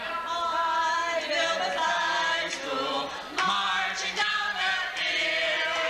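Four voices, a man and three women, singing a school song together.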